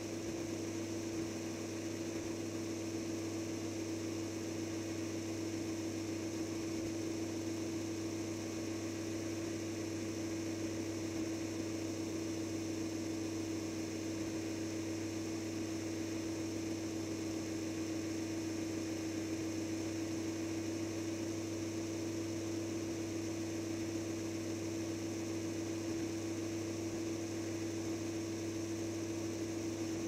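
Steady electric hum from a remote-control truck, heard from a camera mounted inside its body: one constant tone that does not change in pitch.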